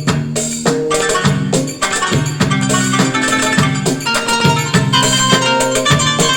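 Roland E-40 electronic keyboard playing a Turkish folk melody on its kanun voice over a rhythmic drum and chord accompaniment.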